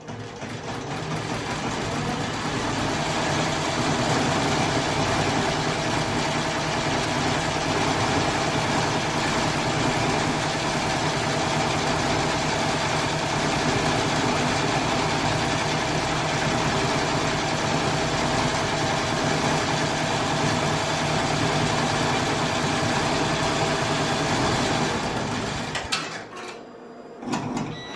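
Multi-needle embroidery machine stitching at a steady pace, sewing a bow-shaped applique outline through vinyl. It comes up to speed over the first couple of seconds and stops about two seconds before the end.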